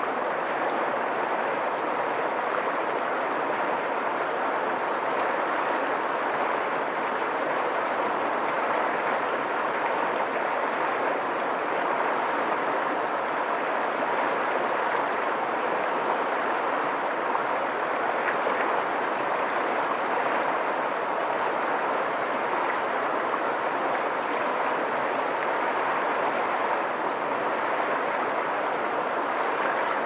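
River water rushing steadily through rapids.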